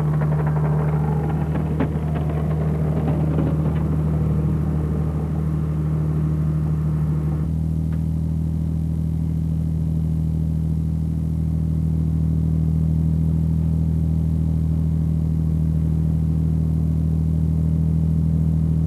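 Fishing boat's diesel engine running steadily with a deep, even hum. For the first seven seconds or so a clattering, rushing layer of wire and water noise rides over it while the trawl is being set, then cuts off abruptly, leaving the engine alone.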